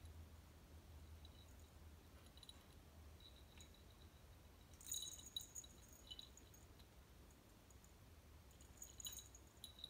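Near silence with a faint low hum, broken by brief, faint tinkling clicks from the small bell on a tabby cat's collar as she bats at a wand toy. The clicks bunch about five seconds in and again near nine seconds.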